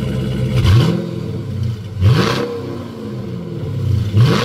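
Dodge Challenger Scat Pack's 392 Hemi V8 idling and revved three times, each throttle blip rising sharply and falling back to idle.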